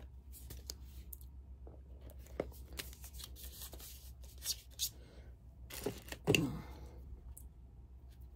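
Makeup palette packaging being handled and torn open: scattered rips, crinkles and small plastic clicks. A short low vocal sound comes about six seconds in.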